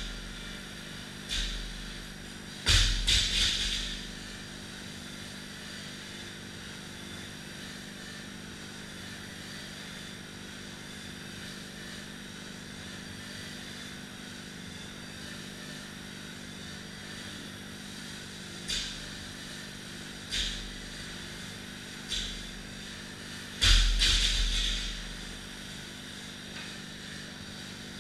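Steady whirring of rowing machine flywheels, broken by the clank of a 225 lb barbell with bumper plates: single lighter knocks, and twice it is dropped onto the rubber floor with a loud bang and a rattling bounce, about 3 seconds in and again about 24 seconds in.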